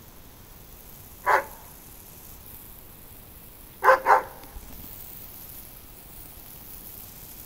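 A dog barking at the water as he plays in a hose spray: one bark about a second in, then two quick barks near four seconds in, over the steady hiss of the garden hose spraying.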